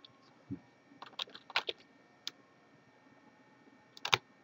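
Computer keyboard being typed on in short runs: a few keystrokes about a second in, a single one past two seconds, and another quick run near the end.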